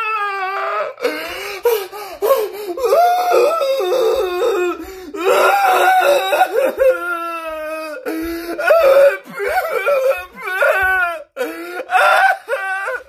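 A man crying: high, wavering wails broken by sobbing gasps, with no words.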